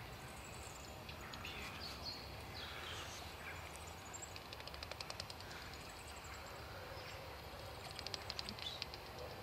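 Noctule bats chattering at the roost hole: scattered high squeaky chirps, with two bursts of rapid ticking rattles, one about halfway through and one near the end.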